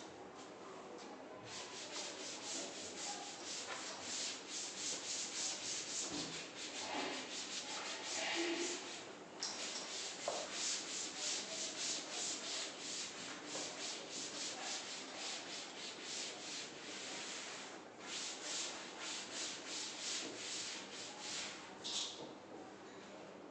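Chalkboard eraser rubbing back and forth across a chalkboard, wiping off chalk writing in quick, rhythmic strokes. It starts about a second and a half in, pauses briefly twice, and stops shortly before the end.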